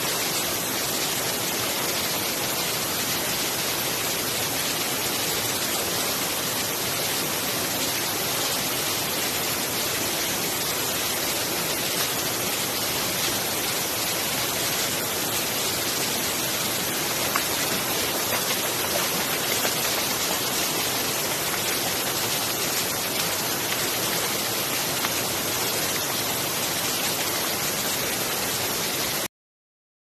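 Small waterfall cascading over rocks into a stream pool: a steady rush of water that cuts off suddenly near the end.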